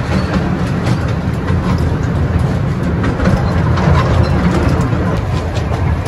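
Currumbin Express tourist train running along its track: a steady low rumble with light clicking from the wheels.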